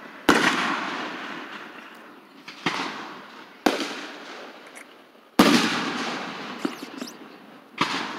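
Fireworks going off: five sharp booms over about eight seconds, each trailing off in a long echo, with a few smaller pops between the fourth and fifth.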